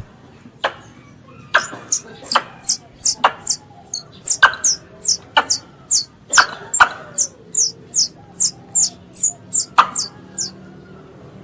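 Tree squirrel lure call: a fast series of sharp clicks mixed with short, very high, falling chirps, about three a second, stopping shortly before the end.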